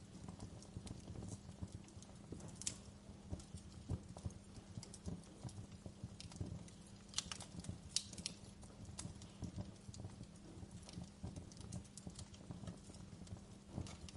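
Campfire crackling: irregular sharp pops and snaps over a low steady rumble of burning, with a cluster of louder pops about seven to eight seconds in.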